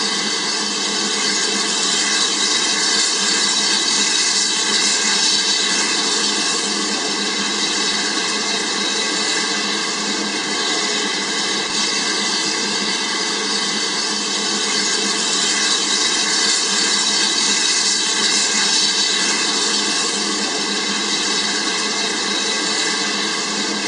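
A loud, steady hiss that does not change, with no clicks or rhythm in it.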